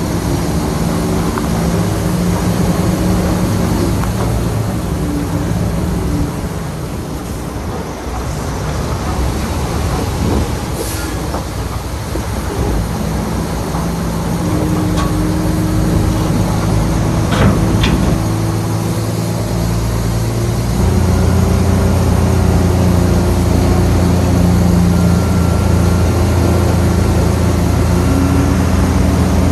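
Shantui bulldozer's diesel engine working under changing load, its note shifting several times, with a couple of sharp metallic clanks about two-thirds of the way through. The engine settles into a heavier, steadier note for the last third.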